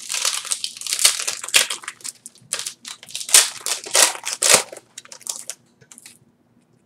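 Foil wrapper of a Yu-Gi-Oh! booster pack crinkling and crackling as it is torn open by hand. The crackle is loud for about five and a half seconds, then dies down to faint rustling.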